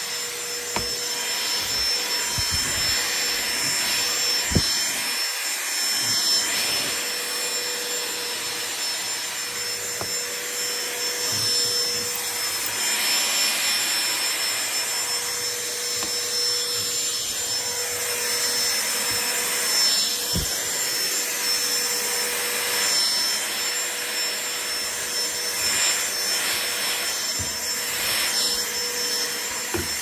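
Dyson DC16 (Root 6) cordless handheld vacuum running steadily with its crevice tool along carpeted stair edges: a steady motor whine over a rush of air, with a few light knocks.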